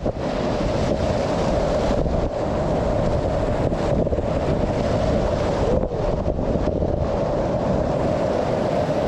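Whitewater rapids rushing steadily around a slalom kayak, with wind buffeting the camera microphone.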